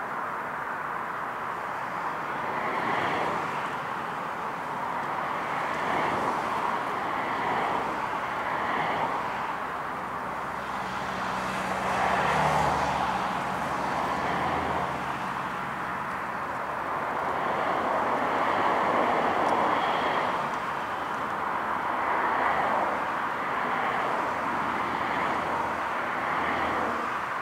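Emirates Airbus A380's four jet engines running at taxi power, heard from across the airfield as a steady rushing sound that swells and fades a few times.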